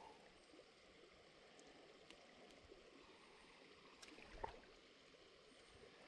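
Near silence: faint flowing creek water, with a single light click about four and a half seconds in.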